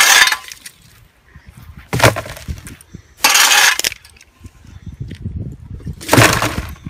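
A shovel blade crashing down on and scraping across concrete among the broken pieces of a Canon T1i camera, with a longer scrape as the debris is scooped up about three seconds in. Near the end the pieces clatter as they are tipped into a trash can.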